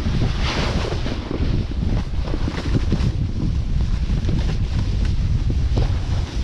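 Wind buffeting the microphone: a heavy, fluttering rumble with a steady hiss over it.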